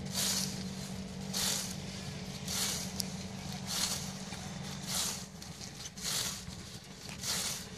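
Long-handled datar, a big cutting blade on a pole, swung low through standing berseem clover to cut green fodder. It makes seven quick swishes, each a little over a second apart, with a steady low hum underneath.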